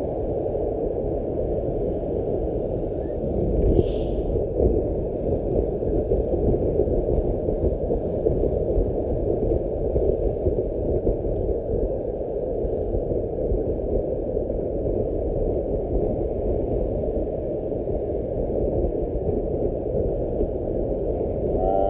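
Steady rushing rumble of wind buffeting the microphone and road noise from a moving vehicle. A brief high chirp about four seconds in.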